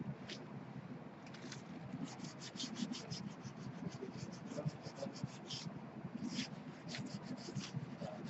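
Stick of charcoal scratching across drawing paper in runs of quick, short strokes.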